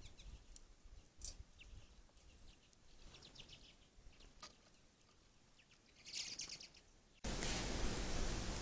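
Small songbirds at a winter feeder giving short, high chirps: a few scattered calls, then a quick cluster about six seconds in. About seven seconds in the sound cuts abruptly to a steady, louder hiss with a low rumble.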